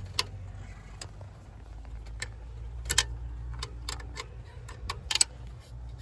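Scattered metallic clicks and ticks of a 10 mm wrench loosening the terminal nut on a wire at a truck's alternator, over a low steady hum.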